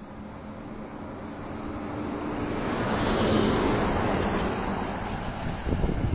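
Road traffic on a highway: a vehicle's tyre and engine noise swells to a peak about three seconds in as it passes close by, then fades.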